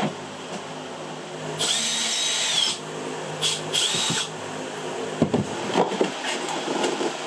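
Small power tool whirring in two short bursts, each spinning up and winding down, then a few knocks and clatters as the work goes on.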